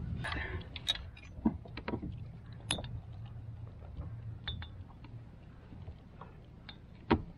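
Small clicks, ticks and knocks of hands working a fishing jig's hook free from a salmon held in a landing net, with one sharper knock about seven seconds in. A low rumble of wind or handling noise sits under the first few seconds.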